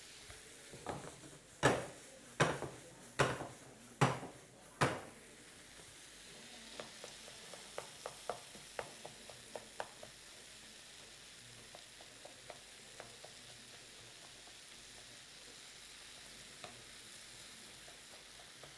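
A pan of dal mash (urad dal) sizzling on the stove while a cooking spoon mashes and stirs it. About five sharp knocks of the spoon against the pan come in the first five seconds, lighter taps and scrapes follow, and then only the steady sizzle is left.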